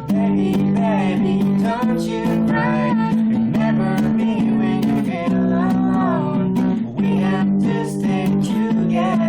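Music: a song with strummed acoustic guitar and a singing voice carrying the melody.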